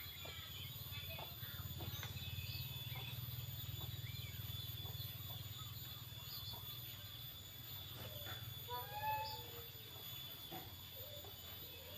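Quiet rural background: faint scattered bird chirps over a steady low hum, with a short animal call that glides in pitch about nine seconds in.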